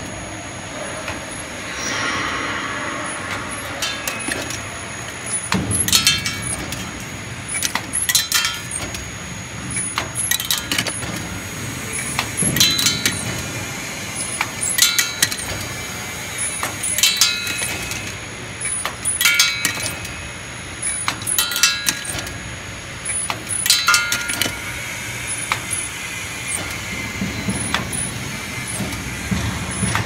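Automatic aluminum tube filling and crimping-sealing machine running, with a clatter of sharp mechanical clicks and knocks repeating about every two seconds, one machine cycle after another, over a steady running hum and a thin high whine.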